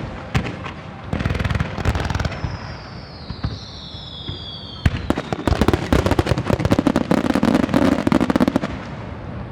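Aerial fireworks shells bursting in rapid volleys of bangs. About two seconds in the volley thins out and a falling whistle sounds, then a sharp bang near the middle sets off another dense volley that dies away near the end.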